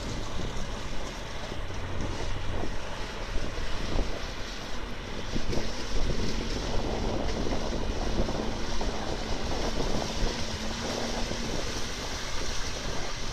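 Military off-road truck driving through a shallow, stony river, its wheels splashing through the water over the steady rush of the current and wind on the microphone. Its engine hum becomes clear about halfway through as it comes closer.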